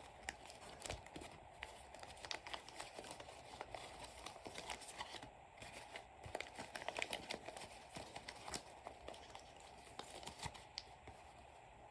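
Folded-paper origami fidget toys being handled: faint, irregular paper crinkling with many small clicks.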